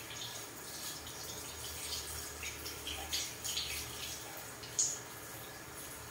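Water from a handheld shower sprayer splashing on hair and into a salon shampoo basin as the hair is rinsed, uneven as the hands work through it, with one brief sharp sound about five seconds in.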